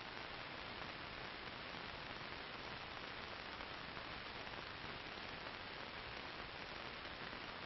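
Steady hiss and static from an old film soundtrack, even throughout, with no shots or other distinct sounds.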